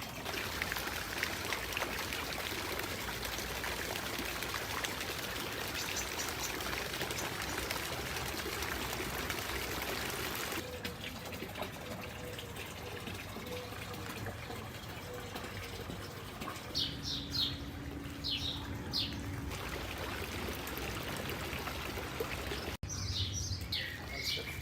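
Garden fountain water splashing and trickling steadily for about ten seconds, then small birds chirping in short, quick, high calls, in two bursts in the second half.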